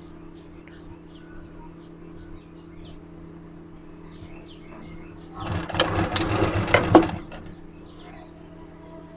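Kailash sewing machine stitching a gold border strip onto fabric in one short run of about two seconds, starting a little past halfway. Before it there is a steady low hum with faint, regularly repeated high chirps.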